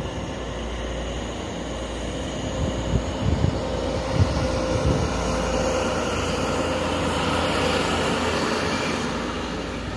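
High Speed Train (InterCity 125) departing, its Class 43 diesel power car running under power with a steady drone and whine. The sound builds as the rear power car moves past, loudest around seven to nine seconds in.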